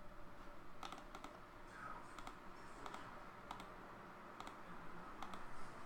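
Faint clicking at a computer: a series of single, irregularly spaced clicks as a list randomizer is run over and over.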